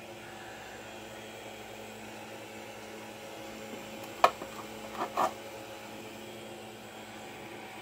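Steady machine hum with a few faint steady tones. About four seconds in, a sharp click, then two softer knocks a second later: a hard plastic 3D-printed tank model being handled and set down on the printer bed.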